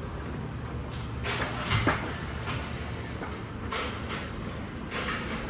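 2003 Honda Odyssey's 3.5-litre V6 idling steadily, with a few faint knocks over it.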